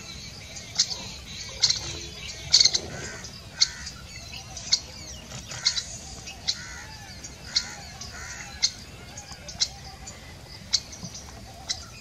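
Wild birds calling: a short, sharp, high note repeated about once a second, over softer, fainter chirps.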